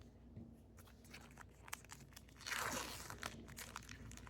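A baseball trading card pack's wrapper being torn open and crinkled: soft crackling, with a louder crinkling tear about two and a half seconds in.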